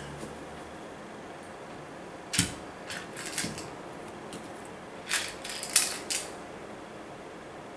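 A kitten batting a small toy on a tiled floor against the foot of a door: a few short clicks and knocks, spread over several seconds, the first with a dull thud.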